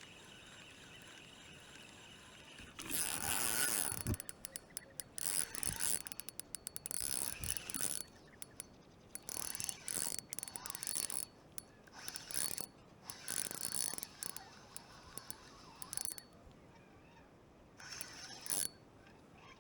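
Fishing reel working in spells of fast ratcheting clicks and whirring, starting about three seconds in and stopping and starting again until near the end.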